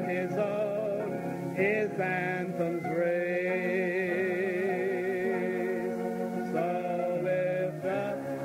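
Slow gospel worship singing with long held notes and no clear words. One note is held with vibrato from about three to six seconds in.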